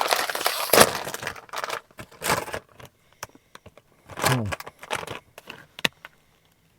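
A foil Doritos chip bag being torn open and handled. There is a burst of loud crinkling and tearing, loudest a little under a second in, then scattered softer crinkles and rustles of the bag.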